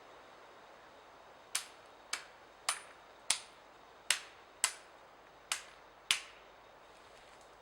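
Eight sharp, crisp knocks of wood being struck, coming about half a second to a second apart before they stop.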